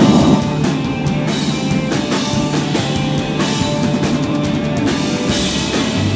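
Background rock music with a drum kit and guitar.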